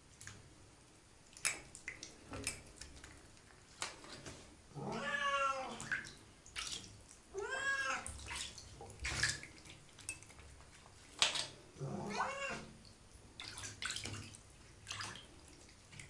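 Siamese cat meowing three times, drawn-out calls of about a second each that bend up and down in pitch, with light clicks and taps in between.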